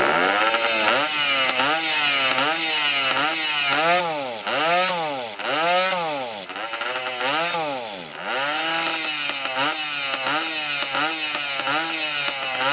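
Vintage Japanese motorcycle engine revved again and again, the throttle blipped about twice a second so the pitch climbs and drops in quick repeats.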